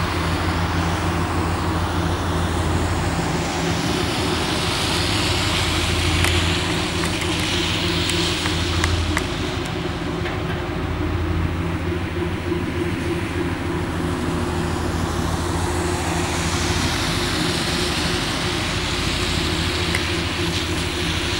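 A tugboat's engine running with a steady low drone as the boat manoeuvres slowly, over a background hiss of traffic noise that swells twice.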